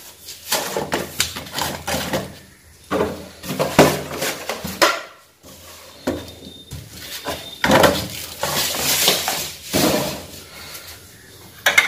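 Plastic jars and kitchen containers being handled on a counter: groups of knocks, rattles and scrapes with short pauses between.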